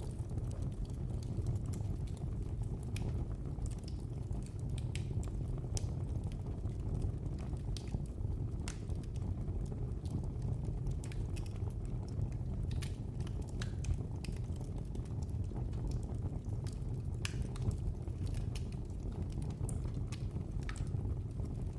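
Wood fire crackling in a fireplace: a steady low rumble of burning with sharp, irregular pops and snaps scattered through it.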